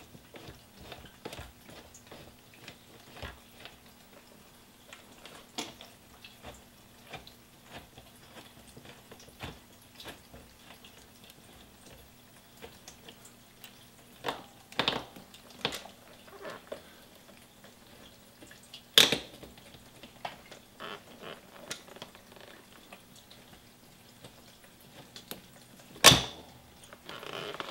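Scattered light metallic clicks and taps of a hex wrench working loose a motorcycle fuel-tank mounting bolt, with two sharper clicks, one about two-thirds through and one near the end.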